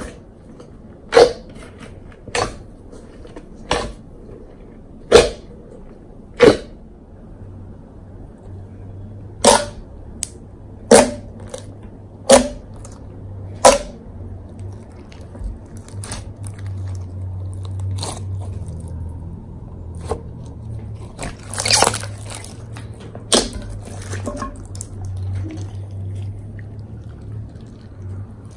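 Clear fishbowl slime packed with iridescent glitter flakes being poked and pressed with fingertips, giving sharp wet pops about every second and a half. Near the end, squishing and stretching the slime gives a denser run of sticky crackles.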